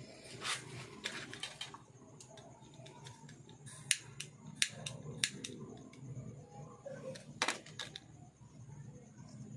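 Sharp small clicks and light rustling as hands work thin wire leads with a small hand tool: a flurry of light clicks at first, then three sharp clicks about two-thirds of a second apart in the middle and one more later, over a steady low hum.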